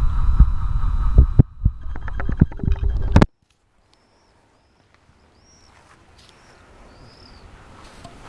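Invacare Storm 3 power wheelchair's electric seat actuator whining under a low rumble and clicks, cutting off abruptly about three seconds in. After that, only a faint background with a few short bird chirps.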